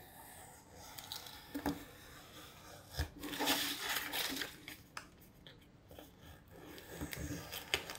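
Faint handling of a cardboard pattern on a cutting mat: a thin blade scoring through the card, with light taps and clicks. About three seconds in there is a knock, then a rustle of about a second as the cut-off strip is lifted away.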